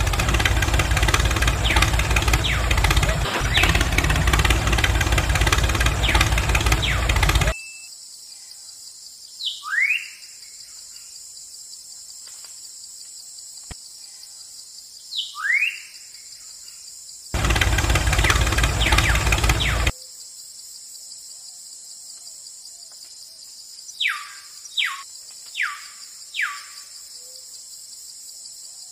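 Tractor engine running loudly for about seven seconds and cutting off sharply, giving way to a steady cricket chirring with two rising bird whistles. The engine comes back for about two and a half seconds and cuts off again, then the crickets return with four short bird calls near the end.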